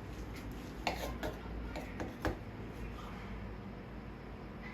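Light kitchen handling noises: four short clicks and taps in the first half, over a low steady background hum.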